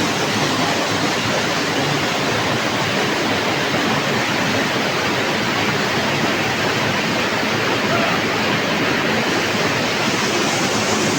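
Waterfall close by: falling water rushing loudly and steadily, with no change in strength.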